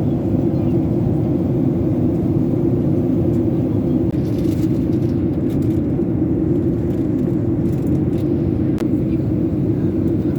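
Steady low rumble of an airliner cabin in flight: engine and airflow noise heard from inside the passenger cabin.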